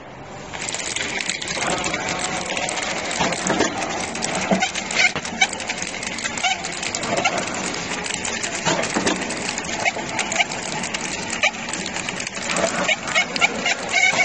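Automatic bottle packing machine running, its mechanism clattering with rapid, irregular clicks and knocks over a steady mechanical noise. The noise gets suddenly louder about half a second in.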